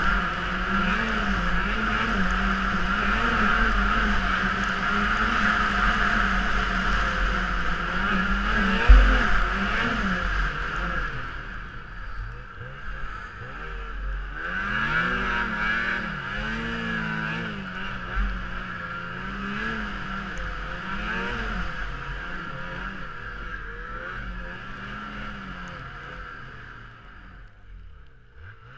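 Snowmobile engine running under way, its pitch rising and falling constantly as the throttle works over the trail, with two heavy thumps, about a third and two thirds of the way through. It grows quieter near the end.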